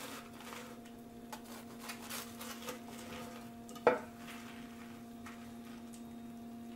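Pieces of crisp toasted sandwich being handled and set down on a wooden board, with faint crumbly ticks and one sharp knock about four seconds in. A steady low hum underneath.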